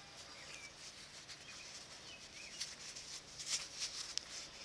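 Soft rustling and creasing of leather as a small sewn buckskin pouch is worked right side out by hand, with a few louder handling noises and a sharp tick in the second half. Faint bird chirps sound in the background.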